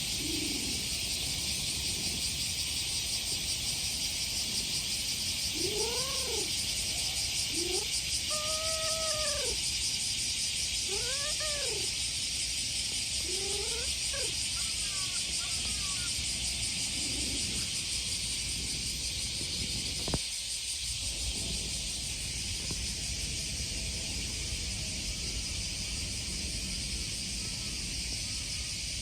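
A stray cat gives about six short meows, each rising and falling in pitch, in answer to being stroked, over the steady loud drone of cicadas. A single sharp click comes about two-thirds of the way through.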